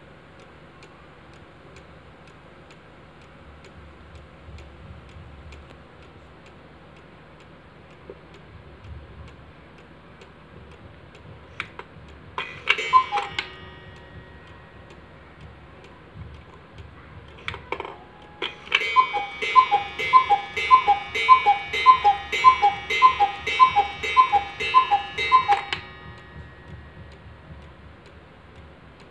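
Black Forest cuckoo clock with a weight-driven brass movement ticking, then striking twelve o'clock. A brief call with a gong ring comes about twelve seconds in, then from about nineteen seconds twelve two-note cuckoo calls follow evenly, each with a gong ring.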